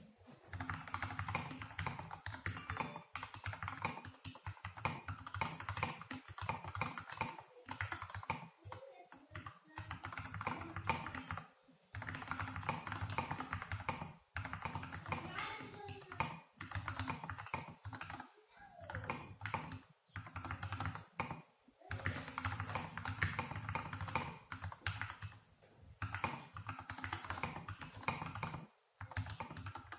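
Steady typing on a Keychron K2 mechanical keyboard with hand-lubed Gateron Brown switches, SA-profile keycaps and sound-dampening foam inside the case. The keystrokes come as a dense run of clacks, broken by a few brief pauses.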